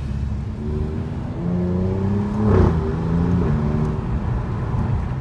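Alfa Romeo Giulia Quadrifoglio's twin-turbo V6 accelerating, its note rising and then stepping down as it shifts gear, with a sharp burst about halfway through.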